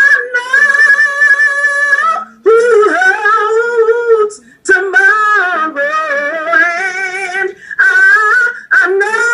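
A woman singing a gospel song in long, drawn-out held notes, about four phrases separated by short breaths.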